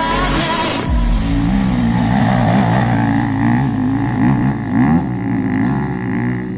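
Dirt bike engine running, its revs rising and falling unevenly.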